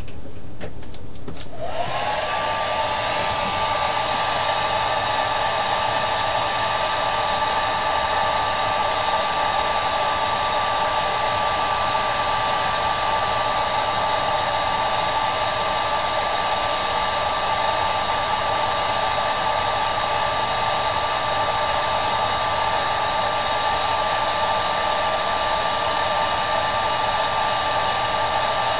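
Handheld hair dryer switched on about two seconds in, after a few clicks, then blowing steadily with a constant whine over the rush of air.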